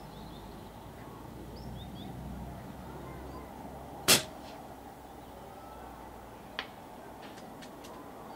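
Single shot from a Logun Solo PCP air rifle: one sharp crack about four seconds in, followed about two and a half seconds later by a much fainter click and then a few faint ticks.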